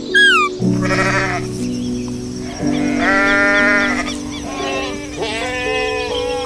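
Sheep bleating three times, long wavering calls, over background music with sustained notes. A short falling whistle sounds at the very start.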